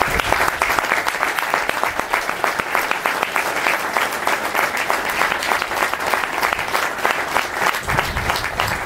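Many people clapping steadily and without a break: a minute of applause from footballers lined up on the pitch.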